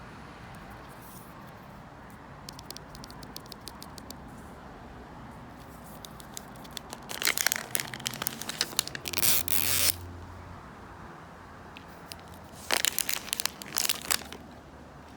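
Plastic wrapping on a Mini Brands mystery ball being torn and crinkled open: a few light clicks and taps, then two spells of tearing and crinkling, the first about seven seconds in lasting some three seconds, the second shorter, near the end.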